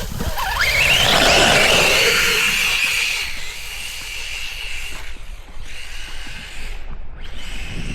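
Electric brushless motor of a Hobao Hyper VS2 RC buggy whining under hard acceleration. Its pitch rises sharply about half a second in and holds high, with a rush of noise from the paddle tyres. It eases off around three seconds, then whines again in two shorter stretches near the end.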